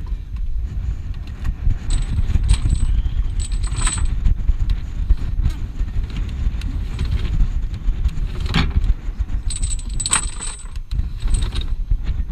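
Iron anchor chain clinking and rattling on the wooden barrel of a sailing barge's hand windlass as it is handled. The jangles come in clusters, at about two to four seconds in and again from about eight to eleven seconds, over a steady low rumble.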